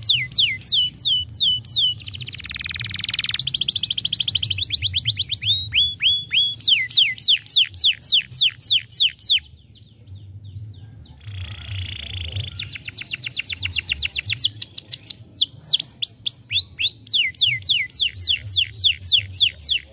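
Domestic canary singing: tours of rapidly repeated falling whistled notes, about four a second, alternating with buzzy rolled trills, with a short pause about halfway through.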